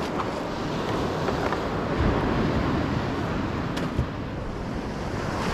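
Steady wind noise on the microphone over the wash of ocean surf, with a few light knocks.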